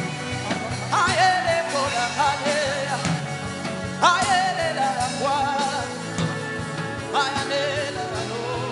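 Worship music: a sustained musical backing under a voice singing three long, wavering phrases.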